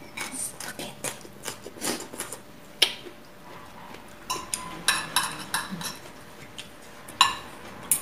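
Metal forks and spoons clinking and scraping against plates and a serving bowl while people eat. The clinks are irregular, and a few sharper strikes ring briefly with a metallic tone.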